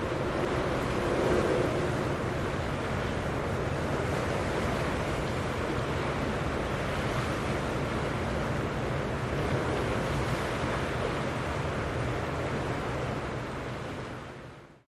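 Wind buffeting the microphone over the wash of waves, with a faint low steady hum underneath; it all fades out near the end.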